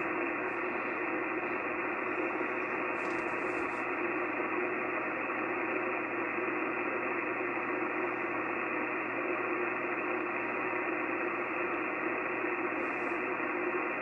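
Icom HF transceiver tuned to 3.795 MHz on the 80-metre band, its speaker giving a steady, even hiss of band noise and static with no voice on the frequency. The hiss is dull, with no treble, and faint steady whistles sit in it.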